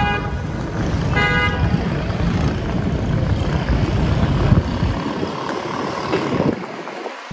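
Outdoor street and traffic noise with a heavy low rumble of wind on the microphone, and a short, steady car-horn toot about a second in. The rumble falls away near the end.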